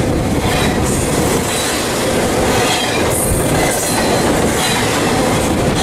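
Double-stack container freight train passing close by at speed: a steady loud rumble and rush of wheels on rail, with faint wheel squeal over it.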